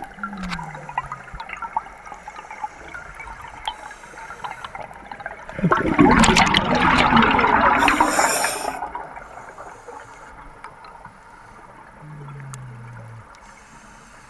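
Exhaled air bubbles from a scuba regulator, heard underwater: scattered bubbling crackle, then a loud burst of bubbling about six seconds in that lasts some three seconds. A short low falling tone sounds near the start and again near the end.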